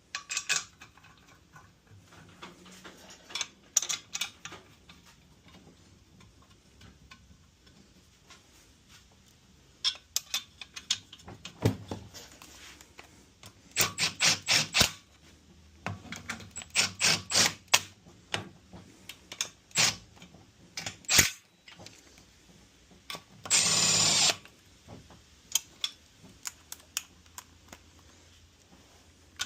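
Hand tools on metal as bolts are run back into an LSA supercharger snout: scattered clinks and clusters of quick repeated clicks, like a ratchet. About three-quarters of the way through there is a loud burst of noise lasting about a second.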